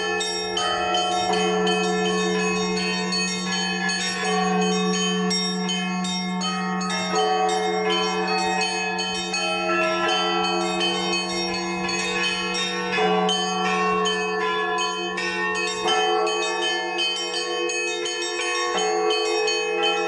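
Orthodox church bells rung by a bell ringer: many smaller bells are struck in a quick, dense pattern over the steady hum of a large bell. The large bell is struck about every three seconds.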